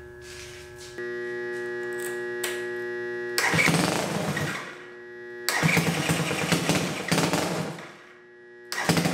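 Homemade two-cylinder boxer engine, converted from a single-cylinder engine, running: a steady hum at idle, then revved hard three times on the throttle, dropping back between the blasts.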